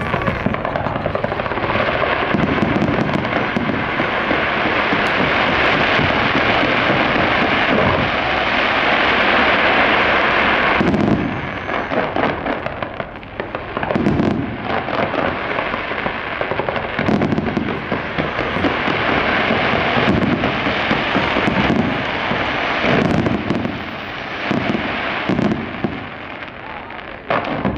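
Fireworks display: a dense, continuous crackling barrage for roughly the first ten seconds, then separate booming bursts about every one to three seconds with crackle between them.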